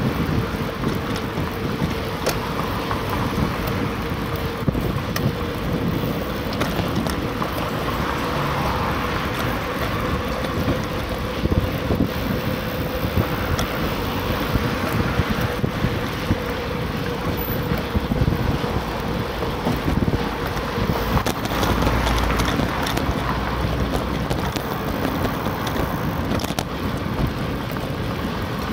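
Wind rushing over the microphone of a camera riding on a moving bicycle, mixed with tyre and road rumble and small rattles. A faint steady tone runs underneath and stops about three-quarters of the way through.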